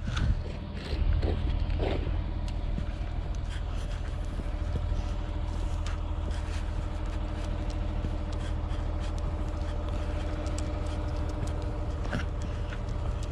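Steady low hum of a motor vehicle engine, with a few light knocks in the first couple of seconds.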